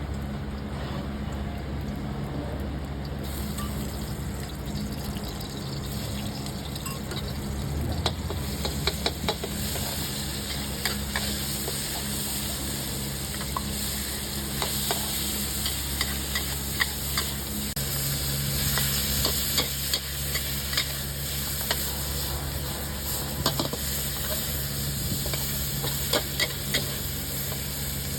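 Food sizzling as it fries in a pan, with frequent sharp metal clinks and scrapes of a cooking utensil starting about eight seconds in, over a steady low hum.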